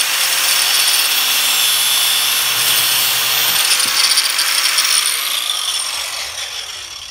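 Angle grinder with a cutoff wheel running and cutting through a steel-braided AN hose held in a vise, a steady high whine; about five seconds in it is switched off and winds down, its pitch and level falling away.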